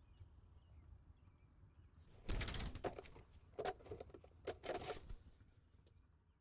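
A crow's wings flapping and rustling against a grass nest in three loud bursts, starting about two seconds in, as the crow raids a robin nest.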